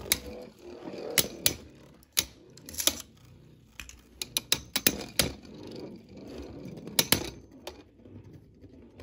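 Two Beyblade Burst spinning tops whirring in a plastic stadium, with sharp clicks at irregular intervals as they strike each other and the stadium wall, and a quick cluster of clicks a few seconds in.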